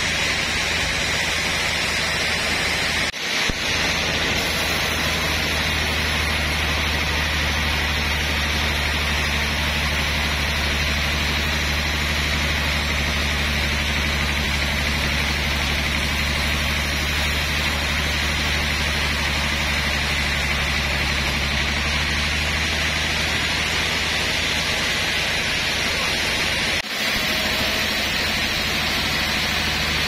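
Sawmill band saw running steadily and cutting through a large rain tree (trembesi) log: a constant low machine hum under a broad rushing noise. The sound breaks off briefly twice, near 3 s and near 27 s.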